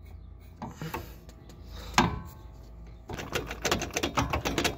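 Metal clunks and rattling from a Chevy Silverado's front CV axle being wiggled and pulled while it is still stuck in the hub. There is a sharp clank with a short ring about two seconds in, then a fast, dense clicking rattle from about three seconds in.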